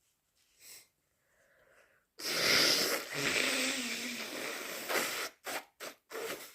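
A snotty nose blow: one long, loud blast of about three seconds starting about two seconds in, followed by three short blows. A faint sniff comes before it.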